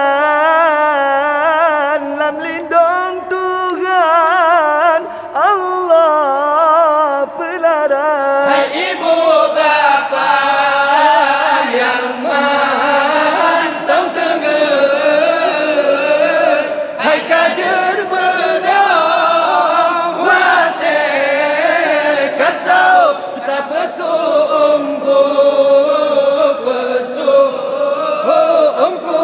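Men chanting an Acehnese dike, a devotional chant sung to wake people for the Ramadan pre-dawn meal. One voice sings a wavering, ornamented line into a microphone, and about eight seconds in a group of voices joins in together.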